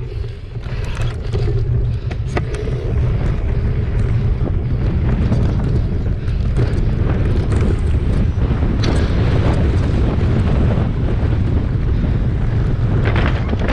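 Wind buffeting the camera microphone on a mountain bike speeding down a gravel dirt trail, with tyres crunching and the bike rattling in short knocks over stones and bumps.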